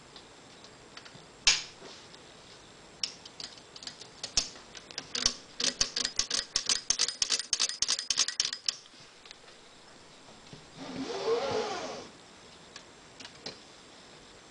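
A 1909 Underwood typewriter being typed on: sharp keystroke clacks of typebars striking the platen, a few single strokes, then a quick run of about six a second for roughly three seconds. Near the end comes a rasping mechanical slide of about a second, followed by a few light clicks.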